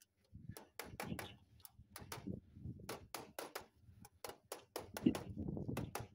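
Hammer tapping the flashing skirt of a whirlybird roof vent down onto roof tiles to make it conform to their shape: a run of short, irregular taps, about three a second.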